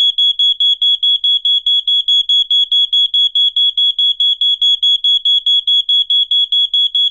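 Smoke detector alarm sounding: a loud, high-pitched beep repeating rapidly, about six times a second, without a break. It is the warning of smoke or fire, the signal to get out.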